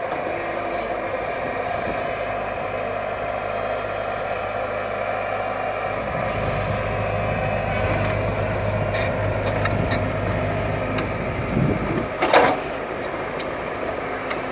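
JCB crawler excavator's diesel engine running, working harder in the middle with a deeper, louder hum. A few sharp metallic clicks come around the ninth and tenth seconds, and a brief loud screech sounds near the end.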